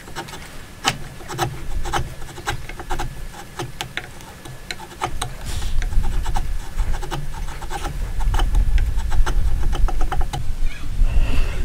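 A hand chisel paring wood from a notch in a wooden beam, in many short, irregular scraping cuts. A low rumble grows louder underneath in the second half.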